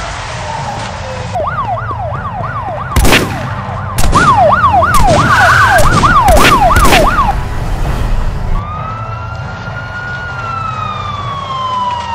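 Police car siren yelping fast, rising and falling about three times a second, with several loud bangs over it around the middle. Near the end a single long tone slowly falls in pitch.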